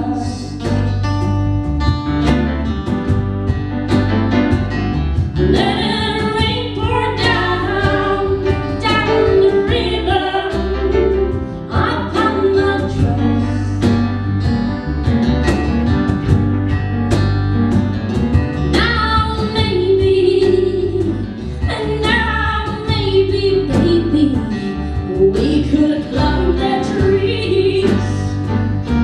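A woman singing a slow song over a band of acoustic guitar, bass, piano and cajon, with a steady beat.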